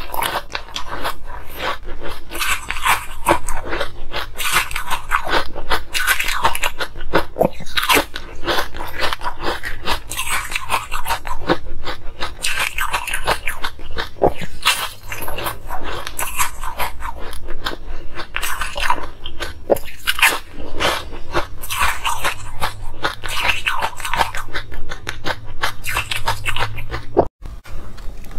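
Close-miked crunching and chewing of hard frozen coloured ice: bite after bite cracking a moulded block between the teeth, a dense, continuous crackle, with a brief break near the end.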